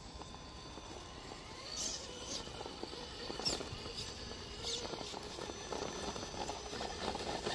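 Traxxas TRX-4 RC rock crawler climbing over rock: faint crackling and scrabbling of its tyres on rock and dry leaves, with several short high chirps in the first five seconds.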